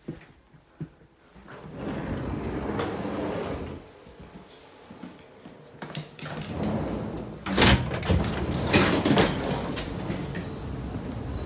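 Automatic sliding gangway doors between passenger railway coaches opening and closing, with knocks and rattles as someone passes through, loudest from about seven to nine and a half seconds in.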